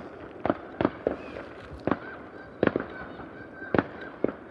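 Fireworks going off around the neighbourhood: about eight sharp bangs at irregular intervals, some single and some in quick pairs, over a steady background hiss.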